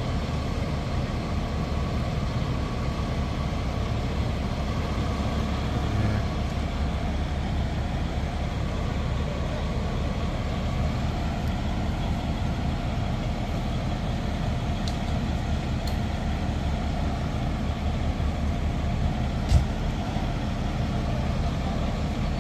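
Diesel engine of a parked fire truck idling steadily, with one short sharp knock near the end.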